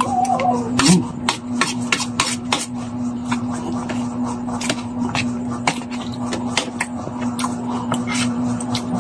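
Spoon and fork clicking and scraping on a plate of rice, with wet chewing and mouth sounds, in irregular sharp ticks about two or three a second. A steady hum runs underneath.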